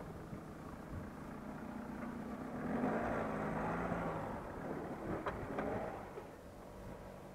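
Mahindra Alturas G4's 2.2-litre four-cylinder diesel engine pulling the SUV over a dirt mound as it drives past, with tyres working through loose dirt. The engine note rises and is loudest about three seconds in, then fades as the car moves away, with a couple of sharp clicks about five seconds in.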